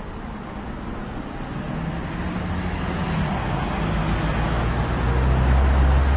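City street traffic: a motor vehicle's engine grows louder as it passes close, loudest near the end, over a steady traffic hum.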